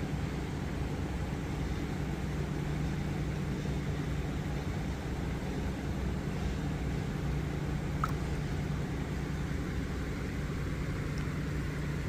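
Steady low rumble with a faint hum and a light hiss over it, and one faint click about eight seconds in.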